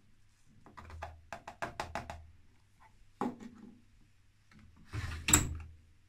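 Hard plastic taps and knocks at a front-loading washing machine's detergent drawer: a quick run of about eight taps as the powder is knocked out of a plastic measuring cup, then a single knock. Near the end the drawer is pushed shut with one loud clunk.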